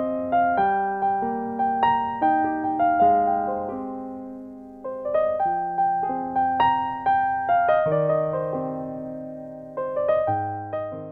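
Slow solo piano background music: single notes struck one after another and left to ring out, with a long held note fading away partway through.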